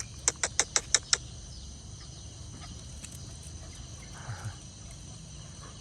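Steady chorus of crickets, with a quick run of six sharp clicks soon after the start.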